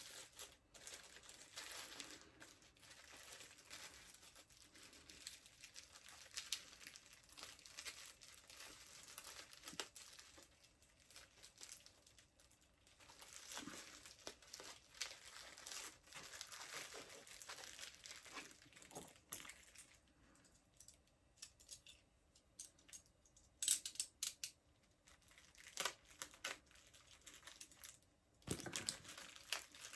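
Packaging crinkling and stubborn packing tape being pulled and torn as a boxed item is unwrapped: faint, intermittent rustling with a few sharper crackles in the last few seconds.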